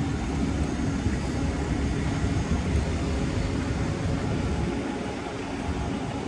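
Street traffic: a steady low rumble of passing vehicle engines and tyres.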